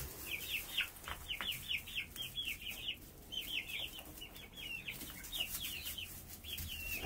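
Young chickens (chicks) peeping: a continuous run of short, high chirps, several a second.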